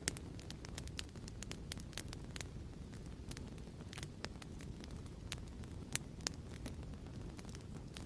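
Wood fire crackling in a fireplace: a steady low rumble with irregular sharp pops and snaps, a couple of louder pops near the start and about six seconds in.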